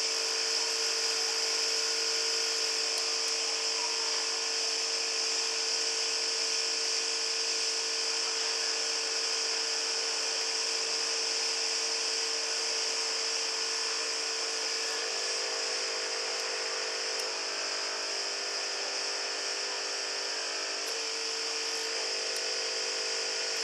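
Small vacuum pump of a QS-2008 SMD vacuum pick-up station running with a steady hum and a high hiss, its tone shifting slightly about two-thirds of the way through.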